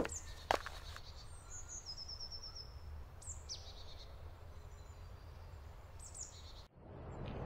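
Quiet forest ambience with small birds chirping now and then, including a short run of quick falling notes about one and a half seconds in. A couple of short knocks come at the very start, and near the end the sound cuts briefly and a louder rushing noise rises.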